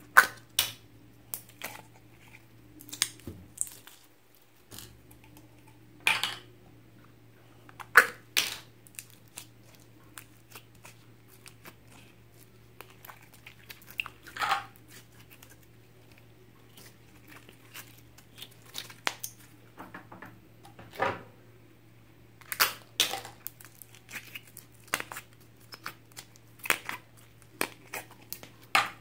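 Slime squeezed and stretched by hand, giving irregular sticky pops and crackles at uneven intervals, some much louder than others.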